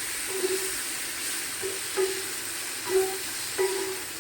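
Food frying in hot oil in a pan: a steady sizzling hiss, with several brief low squeaks over it.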